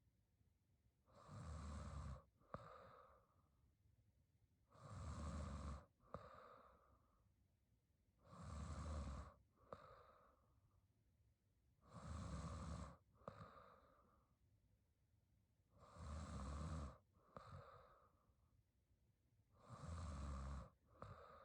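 A young woman snoring in her sleep: six slow breaths about every four seconds, each a rough snore about a second long followed by a softer, shorter breath.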